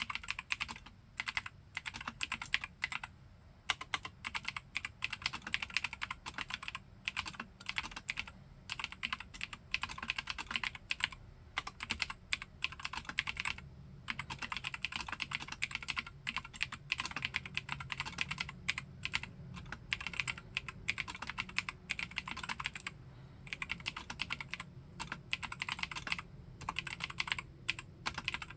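Continuous typing on a Keychron K4 aluminium mechanical keyboard with spray-lubricated Gateron Blue clicky switches. Rapid, irregular keystrokes with a few short pauses.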